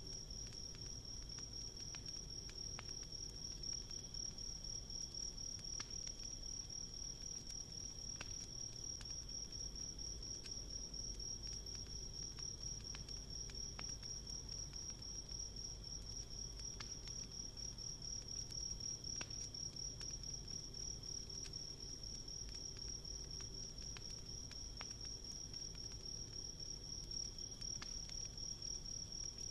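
Crickets trilling in a steady, continuous high chirr, with scattered faint pops and crackles from a wood campfire.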